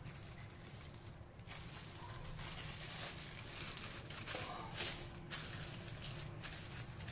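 Faint rustling and crinkling of plastic cling film as hands roll a pastry-wrapped beef fillet up in it on a stone countertop. There are a few short, slightly louder rustles over a low steady hum.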